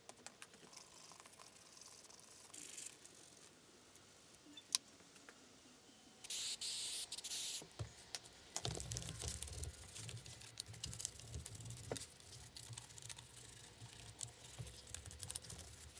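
Faint scrubbing of a brush on the wooden arm of an antique treadle scroll saw, a steady rubbing with many small rapid clicks that starts about halfway through. Before it come a few small clicks and a brief hiss lasting a little over a second.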